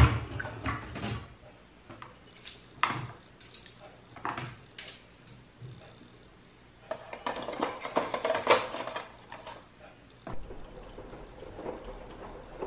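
Household objects being handled during housecleaning: scattered clinks and knocks like dishes and utensils being moved, with a busier stretch of clattering about two-thirds of the way in. It quietens after a sudden change to a faint low hum.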